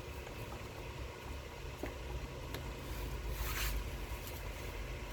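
Hands working at an engine-bay hose and its fittings: a few light clicks, then a short scraping rustle about three and a half seconds in, over a steady low hum.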